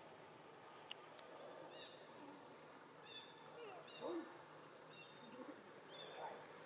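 Faint outdoor ambience with short, high bird chirps repeating about once a second, and a brief, lower animal call about four seconds in.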